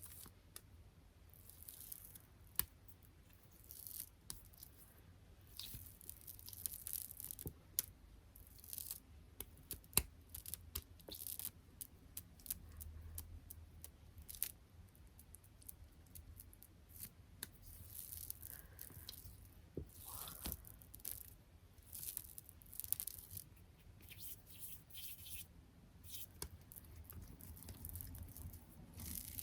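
Close-miked ASMR tapping on small sticky objects: a rapid, irregular stream of light taps and crackly sticky peeling sounds, like fingertips sticking to and pulling off sticker or tape surfaces.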